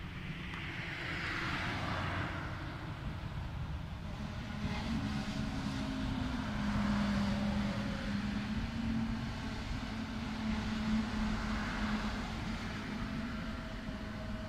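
Cars passing on the road and an electric commuter train running along the tracks beside it, with a steady hum that comes in about four seconds in and holds to the end.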